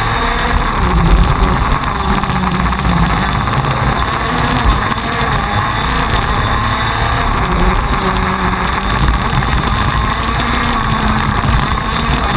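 TM 125 cc two-stroke KZ2 shifter kart engine running at race speed, heard from the kart itself, its pitch rising and falling a little as it is driven through the lap.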